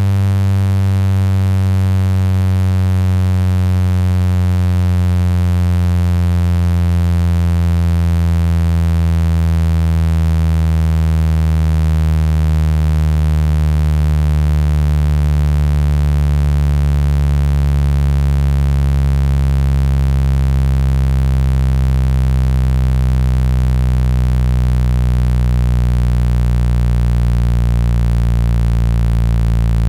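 Synthetic low buzzing tone, rich in overtones, played through a phone speaker to vibrate water out of it. It holds steady and loud while its pitch slowly sinks, and a deeper hum fills in about halfway through.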